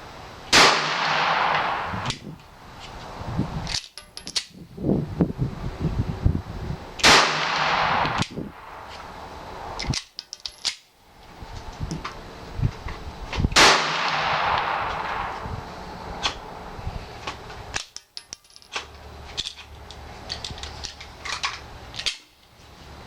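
Glock 42 .380 pistol firing three single shots, roughly six and a half seconds apart, each followed by an echoing tail. Fainter metallic clicks and knocks of handling come between the shots.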